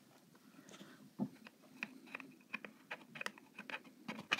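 Faint, irregular light clicks and ticks, about two a second, growing more frequent after the first second.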